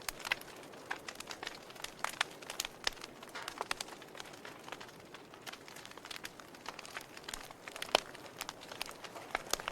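Wood fire crackling in a fireplace: irregular sharp pops and snaps over a soft hiss, with one louder pop about eight seconds in.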